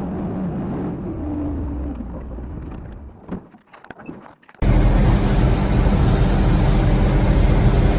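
A vehicle engine running steadily fades away about three seconds in, followed by a short lull with a few light knocks. Then, at about four and a half seconds, a louder, heavier engine sound cuts in suddenly and runs steadily.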